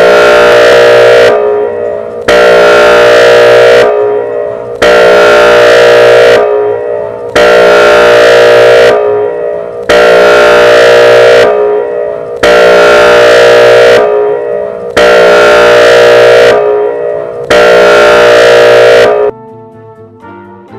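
Whelen Vortex electronic warning siren sounding its air horn tone: eight long, loud blasts of about a second and a half each, evenly spaced, trailing off between blasts. The blasts stop about nineteen seconds in, leaving quieter musical tones.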